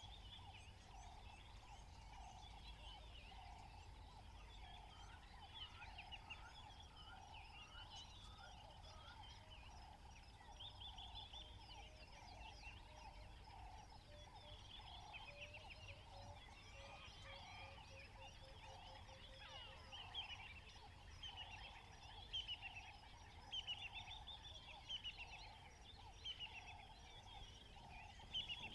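Faint savannah ambience of many birds chirping and trilling, over a low call that repeats about once a second and a low wind-like rumble.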